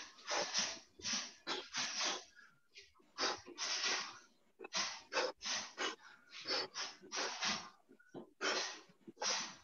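A person breathing out hard through the mouth while shadowboxing, in short, sharp puffs, about two a second, one with each punch.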